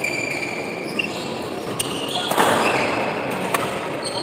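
Badminton rally: several sharp racket strikes on the shuttlecock and high squeaks of court shoes on the court floor, over crowd noise that swells about halfway through.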